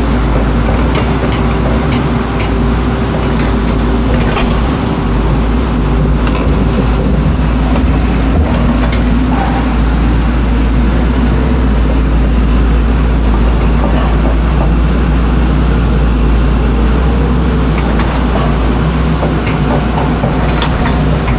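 Construction machine's diesel engine running steadily, a continuous low drone, with scattered small knocks and clatter from the digging work.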